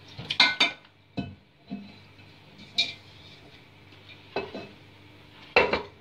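Stainless steel pot clanking against the sink and rim as curd is tipped out of it into a cheese-straining bag: a quick cluster of sharp metallic knocks near the start, then single knocks spread through the rest, the last one among the loudest.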